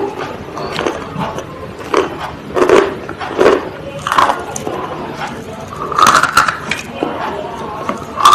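Close-up crunching of something hard and brittle, most likely being bitten and chewed: irregular loud crunches about once a second, with quieter crackling between them.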